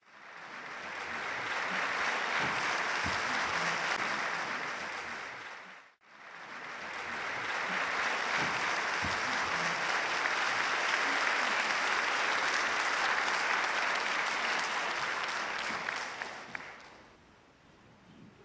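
Concert-hall audience applauding. The applause swells up, cuts off abruptly about six seconds in, then swells again and dies away near the end into quiet hall noise.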